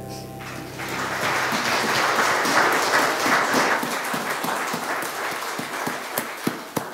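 Congregation applauding. The clapping swells about a second in and thins out to a few scattered single claps near the end.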